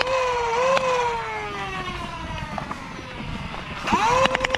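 Foam-dart flywheel blaster: the motors whine up, a quick burst of darts fires with sharp clicks, and the whine falls slowly as the flywheels spin down. About four seconds in it revs up again and fires another rapid burst.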